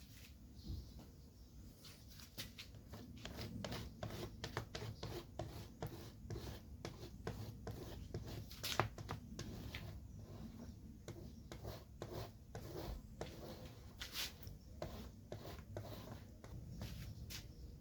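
Rapid, irregular scraping strokes, several a second, with one sharper stroke a little before halfway.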